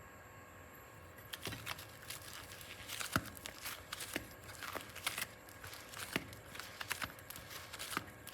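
Slime being handled by hand, with irregular sticky crackles and small pops that begin about a second in.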